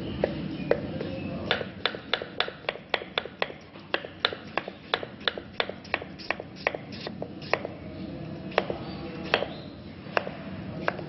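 Kitchen knife slicing a raw potato into thin rounds on a wooden board, the blade tapping the board at the end of each slice. The taps come in a fast even run of about four a second, then slow to a few single taps near the end.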